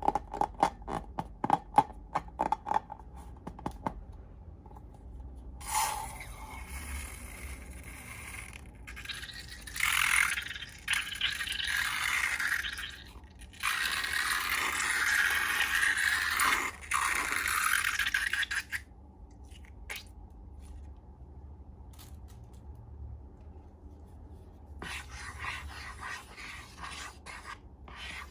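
Slime-making materials handled close up: a quick run of crackling clicks at first, then several long, loud scraping rubs a few seconds each, and more scraping near the end.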